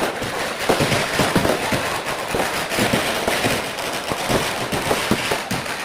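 Firecrackers going off in a dense, irregular run of rapid small bangs and crackles.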